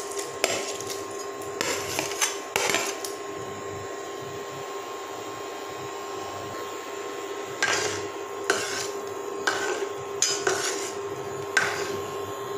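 A spatula scraping sliced vegetable off a plate into a stainless steel pot and knocking against the pot, in a cluster of clinks and scrapes at the start and another in the second half as the pot is stirred. A steady hum from the induction cooktop runs underneath.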